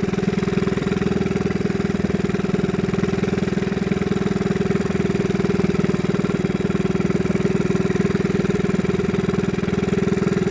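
A small fishing boat's engine running steadily at constant speed.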